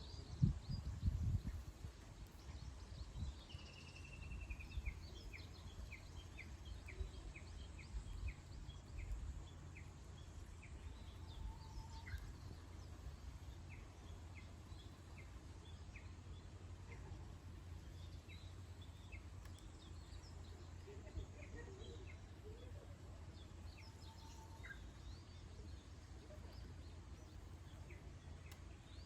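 Wild birds chirping and singing, with many short, high notes scattered through and a brief falling call a few seconds in, over a faint steady low rumble.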